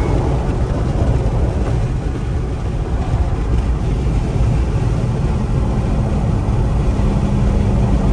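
A car driving: a steady low engine and road rumble, with a faint engine tone that comes in about five seconds in.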